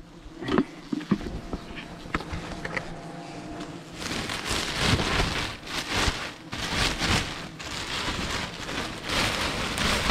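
Black plastic bin bag rustling and crinkling as it is handled and gathered closed over a load of wasp-nest combs, loud and continuous from about four seconds in; before that, a few light clicks and knocks.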